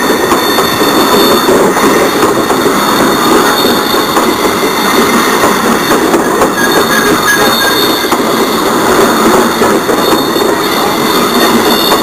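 Model trains running on the layout track: a loud, steady rolling rumble and clatter of wheels on rail.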